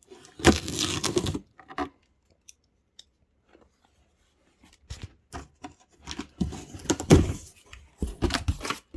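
Packaging being torn open by hand. There is about a second of tearing near the start, then a lull with a few small clicks, and then a longer spell of ripping and rustling over the last four seconds.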